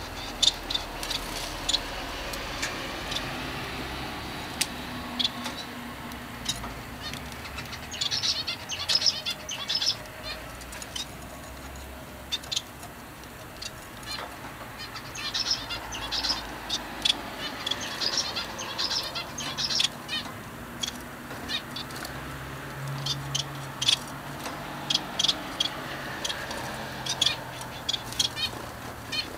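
Caged pet finches chirping in short, high calls that come in quick spells, with sharp clicks and brief wing flutters from birds moving about the cage.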